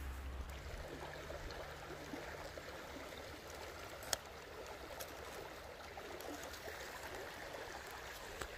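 Shallow stream running over stones: a steady rushing babble of water. A single sharp click comes about four seconds in.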